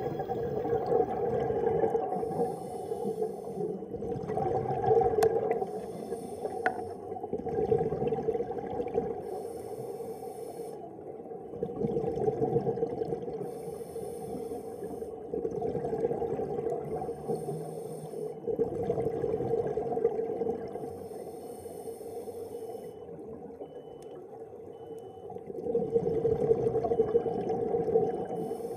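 Scuba diver breathing through a regulator underwater. Each inhale gives a short hiss and each exhale a rumble of bubbles, about every four seconds, over a steady low hum.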